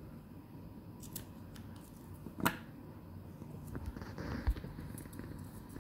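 Small scissors snipping through fabric and lace, a few sharp clicks, the loudest about two and a half seconds in. Near the end, fabric rustles with a soft tap as the cloth is handled.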